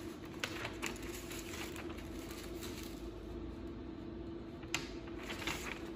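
Sheets of paper and carbon paper being handled and laid flat on the metal bed of an ultrasonic welder, with soft rustles and a few light taps and clicks, over a steady low hum.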